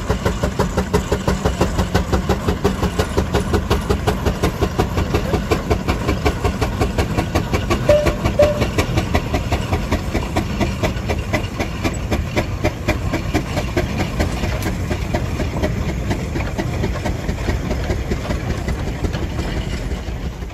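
Steam engine running with a steady, quick, even chuffing beat and hiss.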